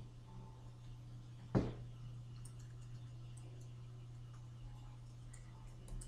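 Steady low hum with one sharp click about one and a half seconds in, followed by a few faint ticks.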